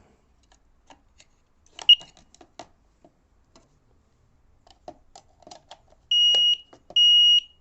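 A Flamingo carbon monoxide alarm. It gives a single short high chirp about two seconds in amid light plastic clicks. Near the end it breaks into its loud alarm: long high beeps a little under a second apart, warning of carbon monoxide given off by the smouldering carbon-rod pocket heater.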